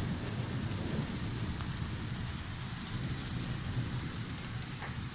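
Fairly heavy rain falling steadily, with a continual low roll of thunder underneath and scattered drops ticking.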